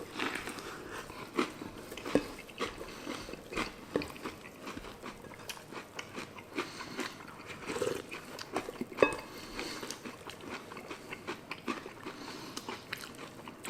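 Close chewing and crunching of spoonfuls of cereal in milk, with irregular short clicks and crackles.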